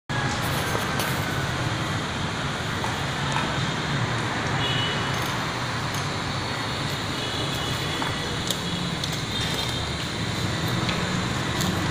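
Steady motor-vehicle rumble, with a few light clicks and knocks over it.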